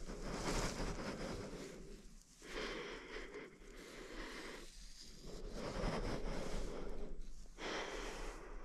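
A person breathing heavily close to the microphone, one long noisy breath about every two and a half seconds.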